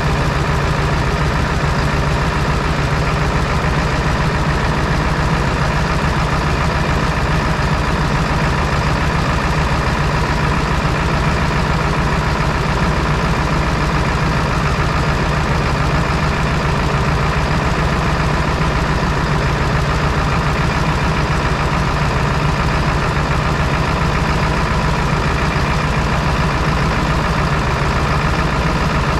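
Ford 7.3L Powerstroke V8 turbo-diesel idling steadily. It has just been started after a fuel filter change and is running a little rough while it burps air out of the fuel lines.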